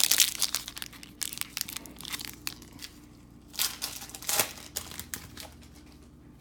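Panini Prizm Fast Break card pack wrapper crinkling and being torn open, in crackly bursts, busiest in the first second.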